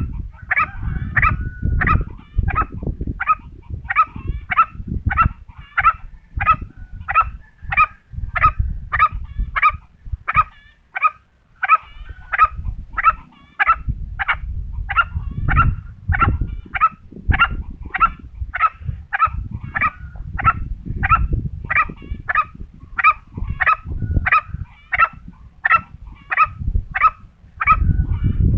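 Green junglefowl calling in a rapid, regular series of short, sharp calls, about one and a half a second, over a low uneven rumble.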